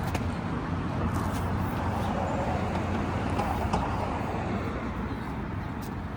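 A steady low mechanical rumble with a broad hiss over it and a few faint clicks, like an engine or motor running close by.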